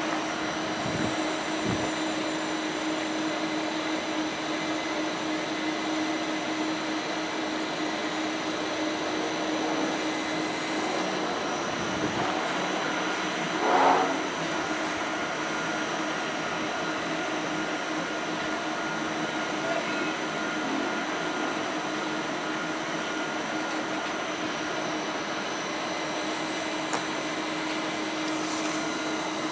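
Steady fan-like hum of a standing double-unit ICE 3 high-speed train, its onboard cooling blowers running, with a steady tone through it. A short loud sound stands out about fourteen seconds in.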